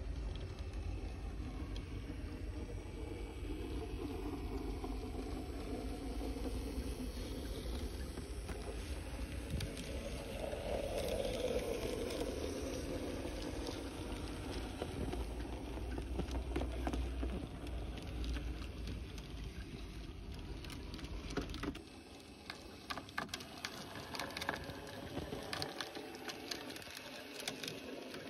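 Heljan 009 narrow-gauge model locomotive Lyn running with its coaches on model railway track: a steady rumble of motor and wheels. About 22 seconds in the rumble drops away, leaving quieter running broken by light clicks and ticks of the wheels on the track.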